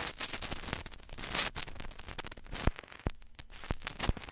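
Vinyl record surface noise: a dense steady crackle with a handful of louder pops scattered through it, cutting off abruptly at the end.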